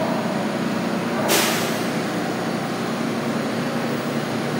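R160 subway train at the platform, with its steady running noise and a short, sharp hiss of compressed air about a second in.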